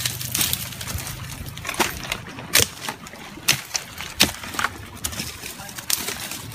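Leaves and branches rustling as a person pushes through dense brush, with irregular sharp snaps and cracks of twigs.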